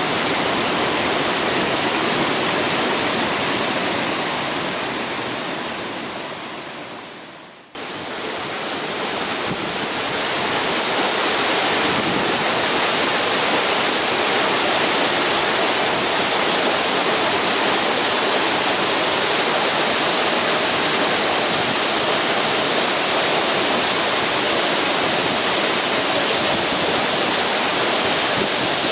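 Waterfall's falling water, a steady full rush of noise. About seven seconds in it fades down and cuts off, then swells back over a few seconds and holds steady.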